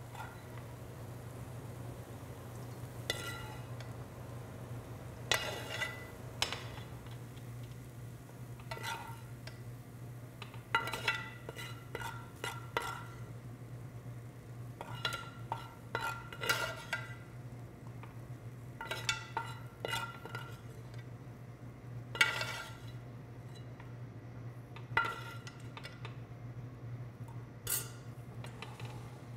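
Metal spoon scooping sautéed onions, celery and apples out of a metal sauté pan into a stainless steel mixing bowl: scrapes and ringing metallic clinks every second or two, over a steady low hum.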